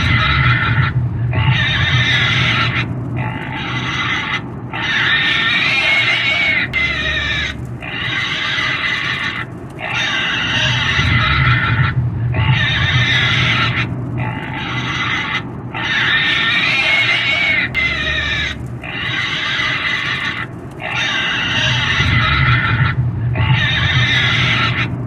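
A pig squealing and screaming over and over, in loud shrill cries each about a second long with short breaks between them. The same sequence repeats about every ten seconds.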